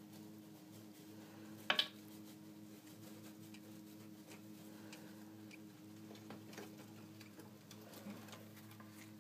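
Faint rustling and crackling of shredded paper bedding and tissue being handled in a hamster nest, with one louder, brief crinkle a little under two seconds in. A steady low hum lies underneath.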